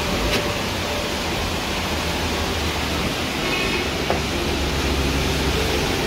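Steady rush of a fast-flowing mountain stream, with a deep rumble beneath it.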